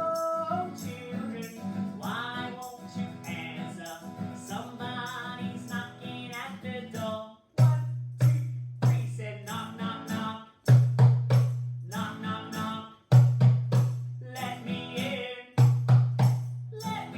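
Singing with a drum played along. About halfway in, deep drum beats come in, in short runs of several strikes a second with brief breaks between them, under and between the sung lines.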